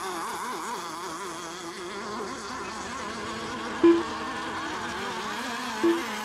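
Several RC race boats' small two-stroke engines buzzing together, their pitch wavering up and down as the boats circle the course. Two short, loud beeps sound about two seconds apart in the second half.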